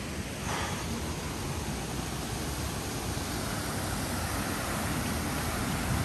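Steady rushing noise with an uneven low rumble underneath.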